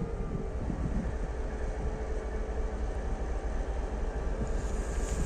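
TEP70 diesel locomotive's 16-cylinder diesel engine running under power as the locomotive moves off, a steady low rumble with a faint steady hum above it.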